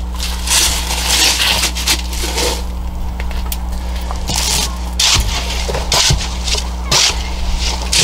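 A metal pipe jabbed down into wet concrete mix packed in a bucket, giving irregular gritty crunching scrapes over a steady low hum.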